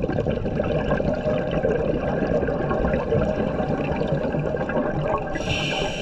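Scuba regulator exhaust heard underwater: a long, steady rush of gurgling bubbles as a diver breathes out, with the hiss of the next inhalation starting near the end.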